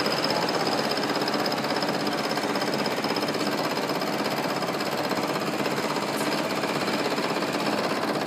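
End mill on a vertical milling machine cutting along the side of a workpiece, taking a light 0.2 mm cut while the table is fed slowly by hand. The cut makes a steady, fast rhythmic grinding noise over the spindle's thin high whine.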